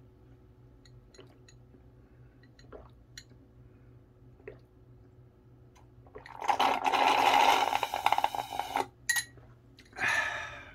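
Slurping the last of a café latte through a metal straw from the bottom of a glass: a loud, fluttering suck of air and liquid lasting about two and a half seconds from halfway in, then a shorter slurp near the end. A few faint clicks come before it.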